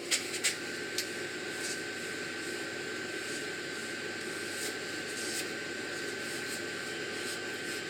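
KS Twister FU-180 wood lathe running, a steady hiss with a thin high whine, with three sharp clicks in the first second.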